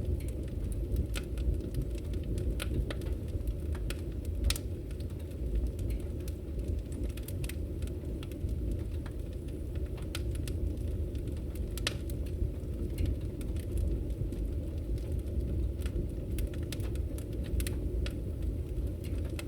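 Bonfire burning with a steady low rumble and irregular sharp crackles and pops of burning wood.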